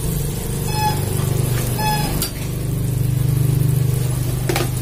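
Steady low motor hum, with two short high-pitched calls about one and two seconds in and a click near the end.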